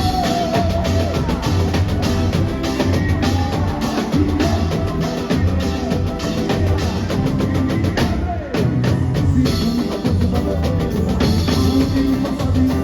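Samba music from a samba school's drum section: dense, fast percussion with a deep bass drum beat under a pitched melody.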